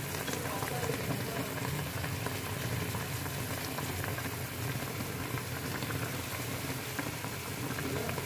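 Water boiling steadily in a kadhai (wok) to steam momos: a continuous bubbling hiss with scattered small pops.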